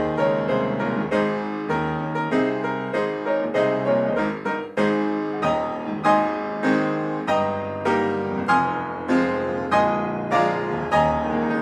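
Gentle piano music: notes and chords struck at a steady, slow pace, each ringing and fading before the next.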